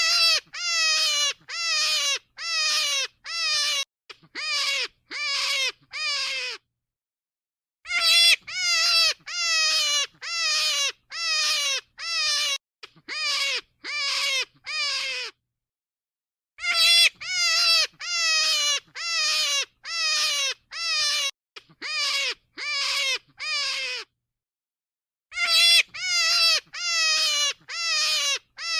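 Rabbit calls: short, high, pitched cries that slide downward, about one and a half a second, in runs of about ten. The same run repeats with pauses of about a second and a half between.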